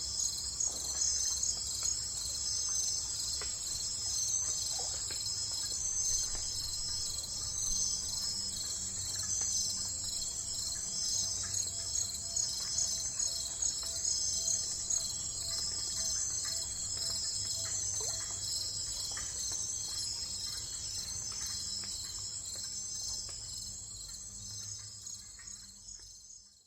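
A dense, steady chorus of crickets chirping, with a faint low rumble underneath; it fades out near the end.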